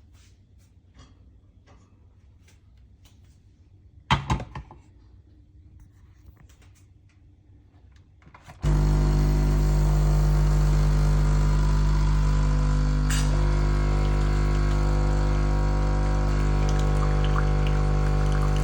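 Capsule coffee machine: a single sharp clunk about four seconds in, then about halfway through its pump starts and runs with a steady, loud hum while the coffee brews.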